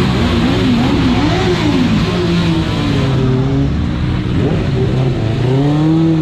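Several sport motorcycle engines running and revving together as a group of bikes pulls away, their pitches rising and falling over one another.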